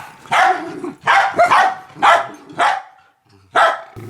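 Small pet dog barking repeatedly in short, sharp barks, about six in all with brief gaps between them. It is barking in agitation at a power drill.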